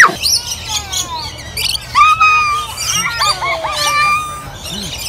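Rainbow lorikeets calling: many overlapping shrill squawks and short downward-sliding whistles.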